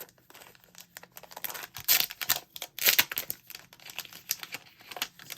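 A package of planner stickers crinkling and crackling as it is handled, in irregular sharp crackles that are loudest about two and three seconds in.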